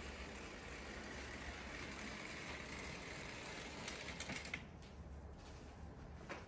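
Room tone: a steady faint hiss over a low hum. A few light clicks come about four seconds in, and the hiss drops away sharply just after.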